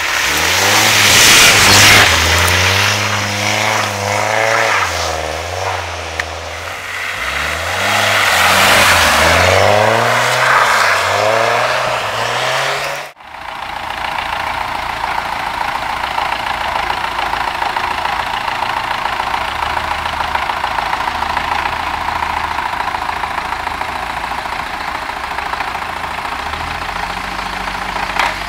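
A Volvo car's engine revs up and falls back again and again while the car is stuck in snow. After a sudden cut, an MTZ tractor's diesel engine runs steadily.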